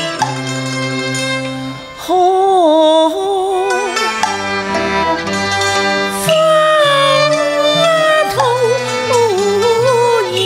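A woman singing a Cantonese opera song with wide vibrato, accompanied by a traditional ensemble of bowed strings and a plucked lute. The voice enters about two seconds in, after a short instrumental phrase.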